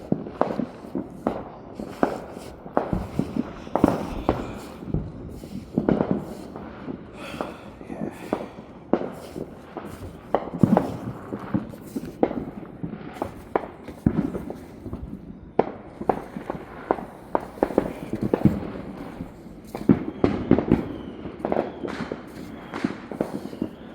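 Fireworks and firecrackers going off all around, a continual irregular barrage of bangs and pops, some near and sharp, others farther off and echoing.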